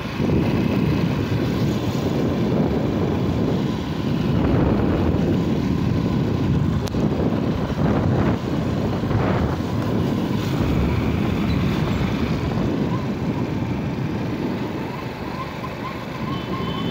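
A motorcycle on the move: wind rushing over the microphone, with the bike's engine running beneath it at a steady, fairly even level.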